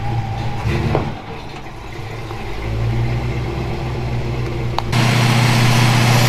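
Old Chevy pickup truck engine idling steadily, with a sudden jump to a louder, closer idle about five seconds in.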